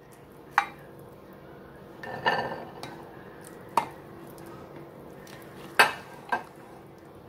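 A serving spoon clinking and scraping against a ceramic baking dish and plate as food is dished up. There are a handful of sharp knocks, about five in all, and the loudest comes near the end.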